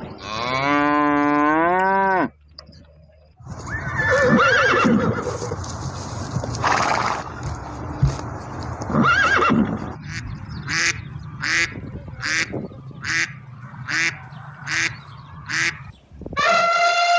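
A string of different domestic animal calls, one after another. First comes a drawn-out pitched call in the first two seconds. Then, after a short gap, a horse whinnies twice over a noisy background, followed by short calls repeating about every two thirds of a second, and another long pitched call starting near the end.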